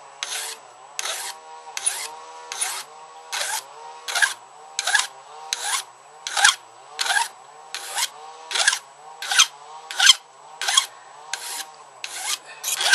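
A hand file rasping in even strokes, about one and a half a second, across the steel of a hand-forged knife blade, filing off a sharp edge. A line trimmer engine runs in the background.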